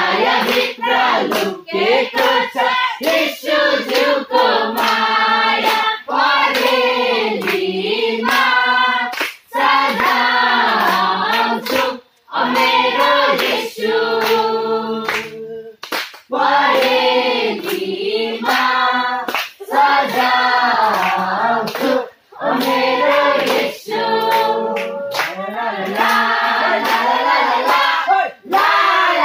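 A church congregation of women singing a praise song together, with hand clapping along to it. The singing breaks off briefly between phrases.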